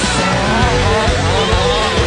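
Rock music with guitar and a sung melody.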